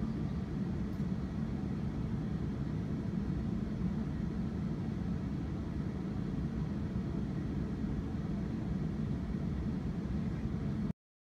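A tram pulling away from a stop makes a steady low rumble, which cuts off suddenly near the end.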